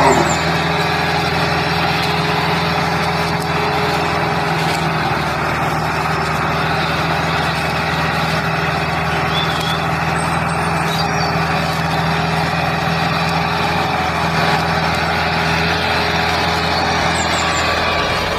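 Steady engine drone of a vehicle, holding one pitch, with one of its low tones dropping out near the end.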